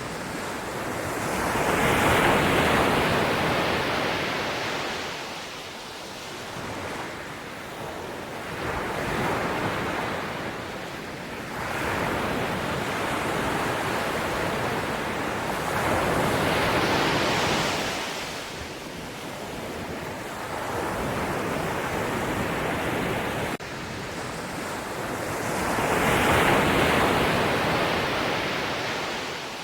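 Ocean surf: waves breaking and washing up the shore, the rush swelling and fading in slow surges, with four loud crests several seconds apart.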